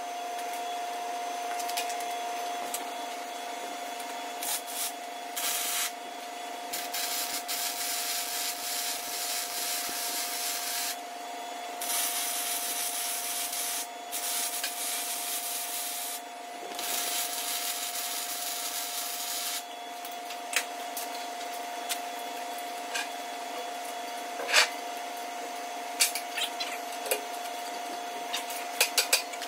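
Handheld grinder grinding steel in long passes, stopping briefly a few times, over a steady high whine. Near the end come a few sharp metal clinks as tools and parts are handled.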